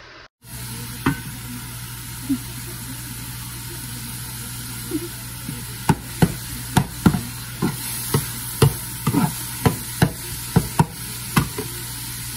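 Crumbled sausage frying and sizzling in a pan. Through the second half, a metal spatula strikes the pan with sharp knocks about twice a second as the sausage is chopped up.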